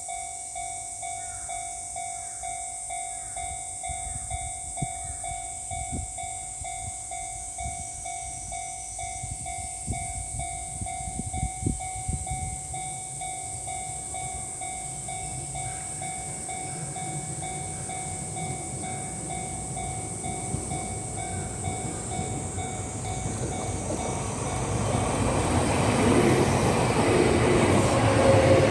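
Level-crossing warning bell ringing steadily at a Japanese railway crossing, with a Kintetsu 6020 series electric train approaching. The train's running noise swells from about two-thirds of the way in and is loud at the end as it reaches the crossing.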